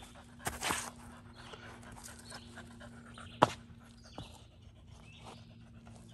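A dog panting, with a single sharp knock about three and a half seconds in.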